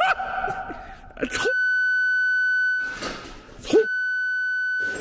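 Two long, steady censor bleeps, a single tone with overtones, about a second apart, that completely replace the audio as if blanking out swearing. Brief voice sounds come before and between them.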